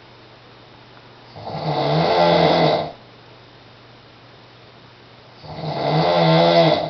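A man snoring in his sleep: two loud snores about four seconds apart, each lasting about a second and a half, with quiet gaps between them.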